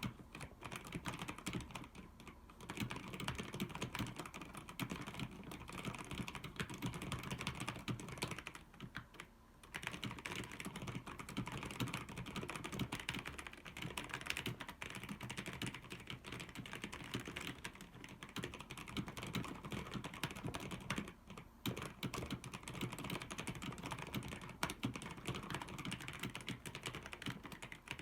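Fast, continuous typing on a mechanical keyboard with Outemu Brown tactile switches: a dense clatter of key presses, pausing briefly about two seconds in, around nine seconds and around twenty-one seconds.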